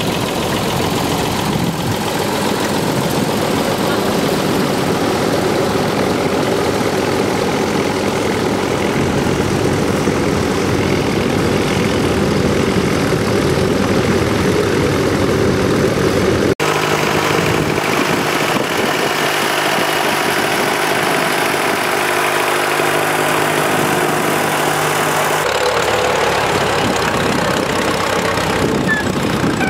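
Vintage farm tractor engines running steadily while ploughing: an Allis-Chalmers first, then a Fordson. The engine sound changes abruptly twice, about halfway and near the end.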